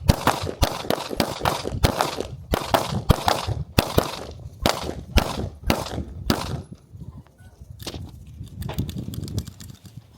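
Gunshots fired in quick succession from a semi-automatic firearm at about three shots a second, each with a short echo. The string stops about six and a half seconds in, followed by a few fainter shots and clicks.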